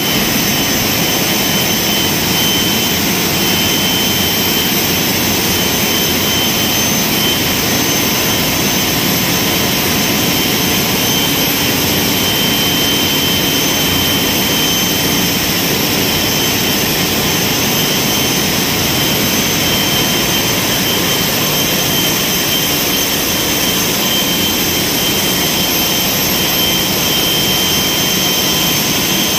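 Ship's engine room with its large marine diesel engines running: a loud, unbroken din with a thin steady high tone above it.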